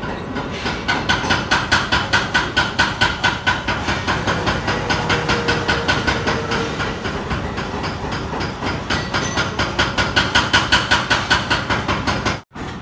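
Background music with a fast, steady beat of about five pulses a second over held tones, cutting out briefly near the end.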